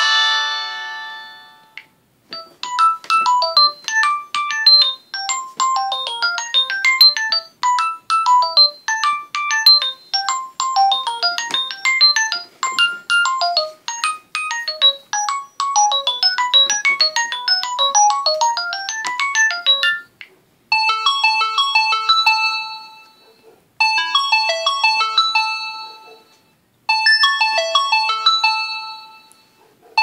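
LG K10 LTE stock ringtones, one after another. The previous tone dies away at the start. From about two seconds in, a ringtone plays a fast melody of short separate notes. A little past twenty seconds a different ringtone starts, repeating one short phrase about every three seconds.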